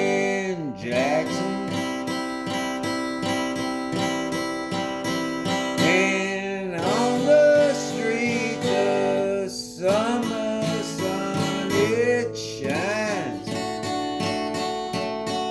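Country song on strummed acoustic guitar, with a melody line that slides up and down in pitch over the chords.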